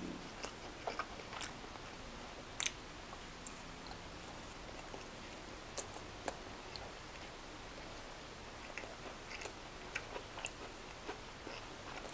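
A man chewing a mouthful of chicken kebab close to the microphone: faint, irregular small clicks and smacks of the mouth.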